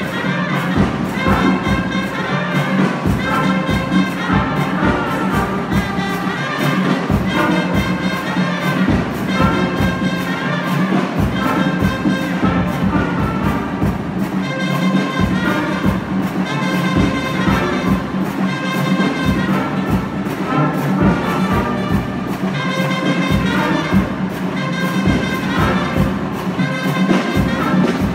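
Brass band of trombones, euphoniums and tubas playing a piece together in full harmony, with drum hits underneath.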